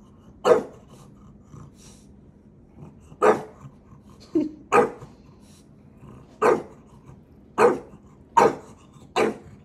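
Dog barking in short, sharp single barks, about seven of them at irregular gaps of one to three seconds.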